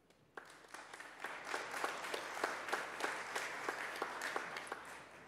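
Audience applauding, starting about half a second in and dying away near the end, with some single claps standing out.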